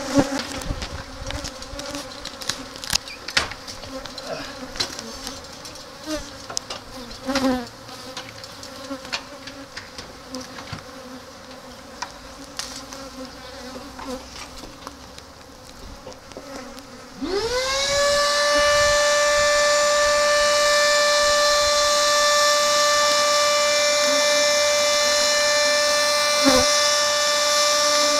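A swarm of agitated, defensive Africanized honey bees buzzing close around the microphone, with scattered clicks. About two-thirds of the way in, a machine starts abruptly. Its whine rises quickly to one steady pitch with a hiss and drowns out the buzzing.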